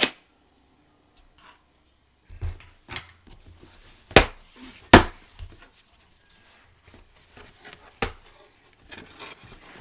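A cardboard shipping box handled and opened by hand: a few sharp knocks, the loudest about four and five seconds in, with light rustling of cardboard between them.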